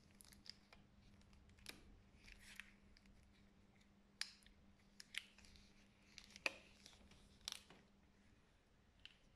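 Faint rubbing, squeaks and small snaps of latex medical gloves as gloved hands pull and smooth them, a scatter of short clicks and rustles with the sharpest a little past the middle.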